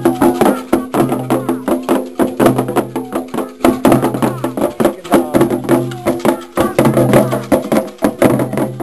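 Percussion-led ceremonial music: fast, dense strokes of drums and a clicking wood-block-like percussion instrument, over steady held voices or tones.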